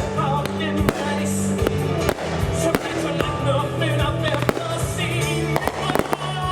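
Fireworks finale: rapid, closely spaced bangs and crackles over loud music with sustained low notes.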